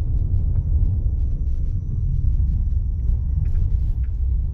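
Low, steady rumble of a car's tyres rolling over an old brick road, heard from inside the cabin, with faint small clicks and rattles throughout.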